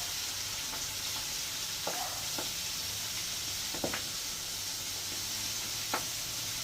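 Floured lobster and fish frying in hot oil in a pan: a steady high sizzle, with three sharp ticks about two seconds apart.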